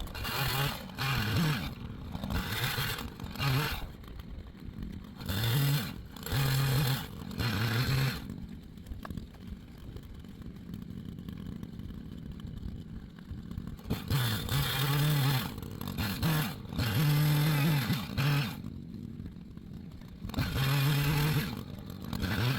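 Echo CS-590 Timber Wolf two-stroke chainsaw cutting wood. The engine revs up to full throttle in repeated bursts of about a second and drops back between them, with a longer steadier stretch near the middle.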